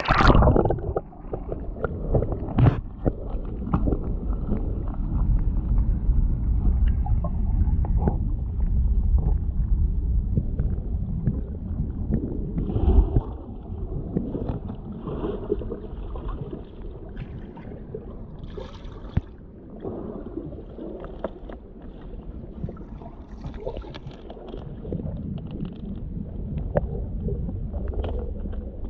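River water heard through a camera submerged in it: a muffled low rumble and gurgling with scattered small clicks and knocks, just after a splash as the camera goes under at the start.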